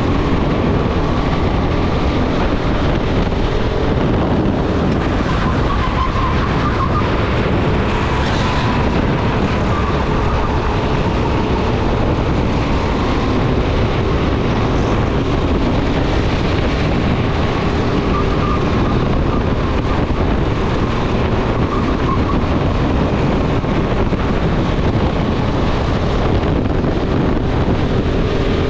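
Go-kart running at racing speed, heard from on board: a steady drone from the kart's motor whose pitch rises and falls a little with speed through the corners, over wind noise on the microphone.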